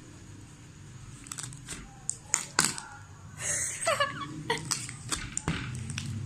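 Clear slime being pushed back into its tub, giving a series of short, sharp squelching pops, the funny noises the slime makes. A brief giggle comes about halfway through.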